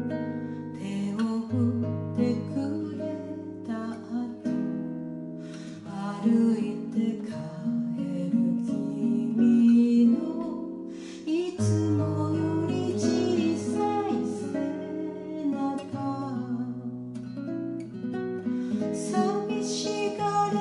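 Classical nylon-string guitar played fingerstyle, with held bass notes under a moving melody.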